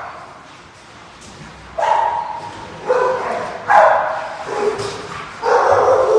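Shelter dogs barking in a kennel row: a short lull, then about five loud barks from about two seconds in.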